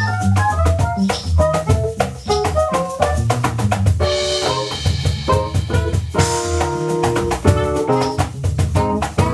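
Live world-jazz playing: electric keyboards run quick lines of notes over a keyboard bass line, with drums and hand percussion keeping a steady groove. About four seconds in, held chords and a cymbal wash come in, with soprano saxophone in the ensemble.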